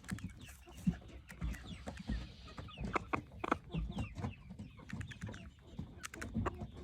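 Chickens clucking softly as the flock settles to roost for the night, mixed with scattered short clicks and taps.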